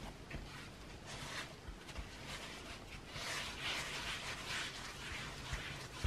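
Hands kneading a ball of shortcrust pastry dough around a wooden bowl, pressing and rubbing it against the floured sides: a run of soft rubbing, scraping strokes, loudest a little past the middle.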